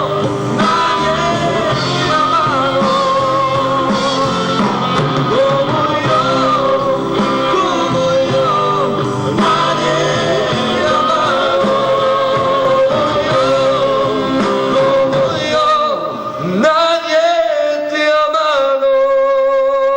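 Rock song with a singing voice over guitars and a steady band, thinning out to a lighter passage with held guitar notes about three-quarters of the way in.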